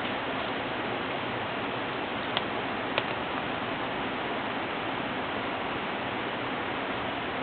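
Two sharp cracks from burning kindling in a small campfire, about half a second apart, over a steady hiss.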